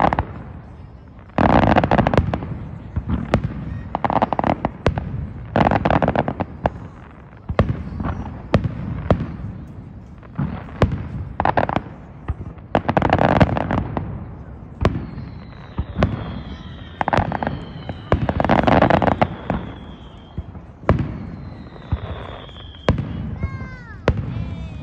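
Aerial fireworks display: shells bursting with sharp bangs and loud stretches of crackling. From about fifteen seconds in, high whistles fall slightly in pitch, and near the end a cluster of short rising whistles joins them.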